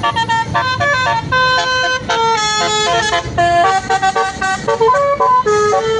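Basuri telolet musical horn playing a quick melody, one horn note after another changing pitch every fraction of a second, over a low rumble.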